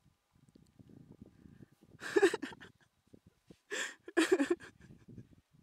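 A person gasping and grunting with effort while climbing, two loud strained breaths about two seconds in and again around four seconds in.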